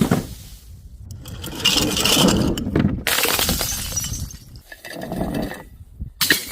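Glass breaking and shattering, with stretches of crunching glass and high clinking rings between the crashes; one sharp impact comes at the start and another near the end.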